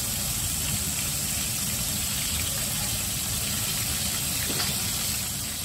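Breaded fish pieces frying in hot oil in a stainless steel pan: a steady sizzle, with a steady low rumble underneath.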